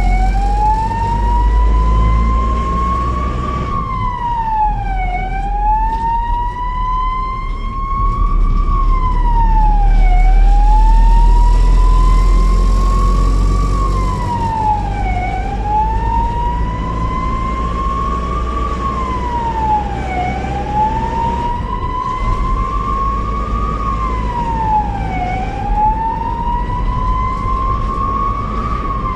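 Ambulance siren on a wail: each cycle is a slow rising tone that drops back quickly, repeating about every five seconds. Underneath it runs a low rumble of engine and road noise, heavier in the first half.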